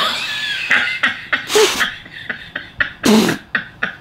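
A person huffing loud, forceful breaths close to the microphone, about three sharp puffs, with squeaky vocal sounds in the first one.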